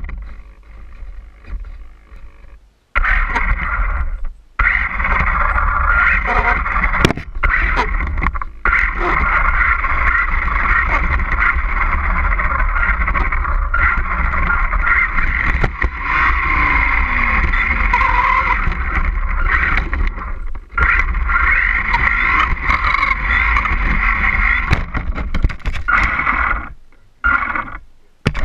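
Onboard sound of a radio-controlled truck driving over concrete: its motor and gears whine steadily over rumble from the tyres and wind on the camera. The sound cuts out briefly a few times, about three seconds in, around twenty seconds in and near the end.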